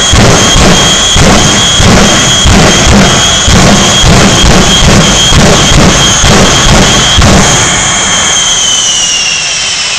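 Jet engines of a three-jet semi truck running at full power, very loud, with strong whooshing pulses about twice a second over a steady high whine. About eight seconds in, the pulsing stops and the whine slides down in pitch as the engines wind down.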